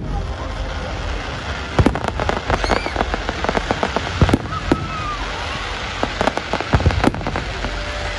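Fireworks display: a steady dense crackling from glittering gold stars, with several sharp bangs of shells bursting.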